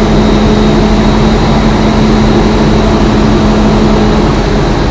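International truck's diesel engine running steadily at high idle with the air compressor building brake air pressure, heard from inside the cab, a build the driver calls a little slow. A steady tone in the sound fades out about four seconds in and the level eases slightly near the end.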